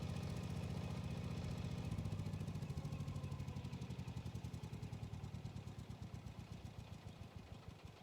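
Yanmar cultivator's diesel engine running with a steady beat, then slowing down from about two seconds in, its individual firing pulses spreading apart and fading.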